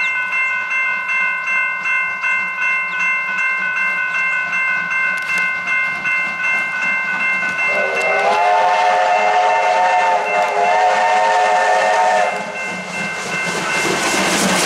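Steam locomotive whistle sounding one long blast of about four seconds, starting about eight seconds in, over a bell ringing in a quick steady rhythm, typical of a railway crossing bell. Near the end the locomotive rushes past close by with its exhaust and wheel noise.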